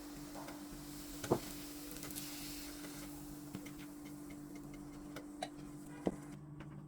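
A few light clicks and taps of kitchen utensils on cookware, with a louder knock about a second in and another near the end, over a low steady hum.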